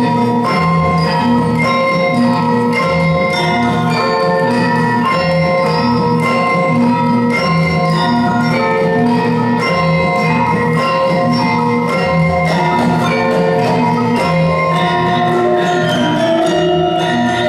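Gamelan ensemble playing a steady, repeating interlocking pattern on bronze metallophones and gongs, with ringing struck notes in several registers.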